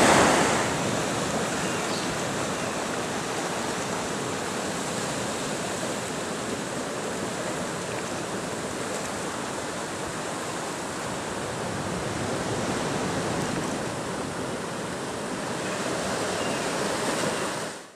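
Ocean surf washing over a rocky shoreline: a steady rushing wash of water. It drops a little about half a second in, swells gently now and then, and cuts off abruptly at the end.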